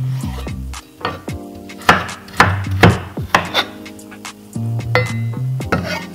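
Chef's knife chopping carrots on a wooden cutting board: a series of sharp, irregular knocks of the blade hitting the board. Background music with steady low notes plays underneath.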